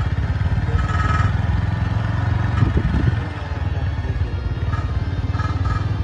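Motorcycle engine running steadily at low speed while being ridden slowly along a road.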